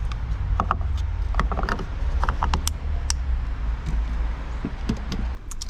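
Scattered small mechanical clicks and creaks, like parts or tools being handled, over a steady low rumble.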